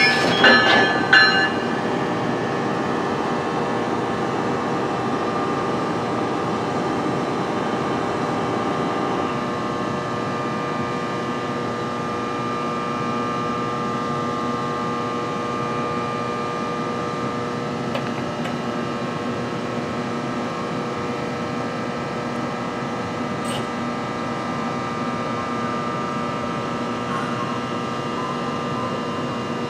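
A stopped NJ Transit multilevel commuter train standing at the platform with its equipment humming steadily in several even tones. A few short squeaks come in the first second or so, as it settles to a stop.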